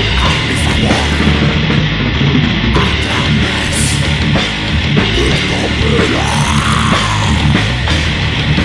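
Grindcore band recording: loud distorted electric guitar and a drum kit playing together without a break.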